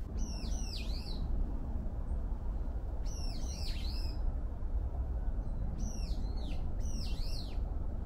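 A songbird calling in four short bursts of quick, falling whistled notes, over a steady low background rumble.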